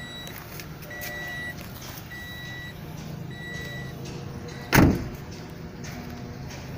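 Toyota Vios warning chime beeping steadily, a half-second beep about every 1.2 seconds, with the driver's door open and the key left in the ignition. It stops, and a car door shuts with a loud thud just before five seconds in.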